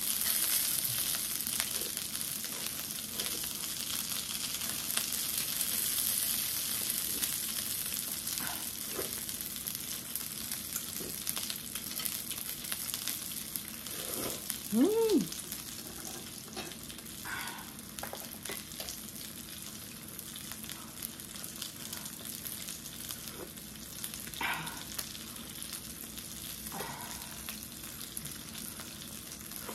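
Pan-fried kimchi dumplings sizzling in oil in a frying pan: a steady hiss. About halfway through, a brief tone rises and falls.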